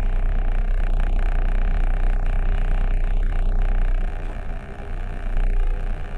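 Steady low engine rumble of an idling vehicle, heard from inside its cab, easing a little after about four seconds.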